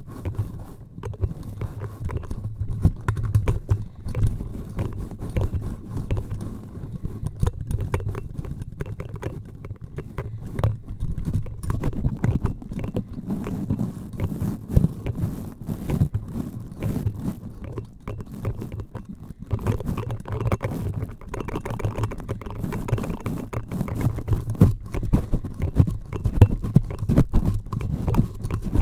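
Close-up scratching, rubbing and tapping directly on a microphone: a dense, irregular run of small taps and scrapes, each stroke carrying a deep thud.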